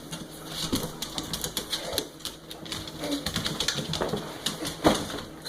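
A dog's claws clicking and scrabbling quickly and irregularly on a hard floor as she spins, with one louder knock near the end.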